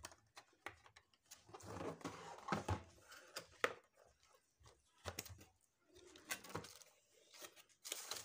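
Cardboard box being handled and opened by hand: scattered taps, knocks and clicks, with brief scraping of cardboard.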